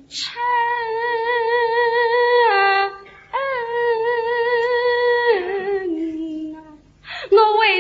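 A tanci singer holding long, drawn-out wavering notes on a vowel: two long notes at one pitch, then a lower note that fades, with a new phrase starting near the end.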